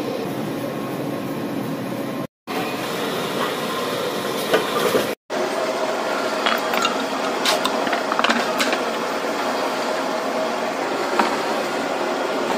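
Steady workshop machine noise with scattered sharp clinks and taps of hand work on a steel mould plate, most of them in the middle of the stretch. The sound breaks off briefly twice at the video's cuts.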